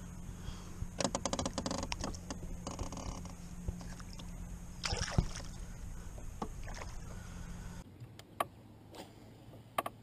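Rustling and clicking of handling noise in a canoe as a just-caught largemouth bass is released, with a sharp knock about five seconds in. Near the end the background drops quieter, with a few light ticks.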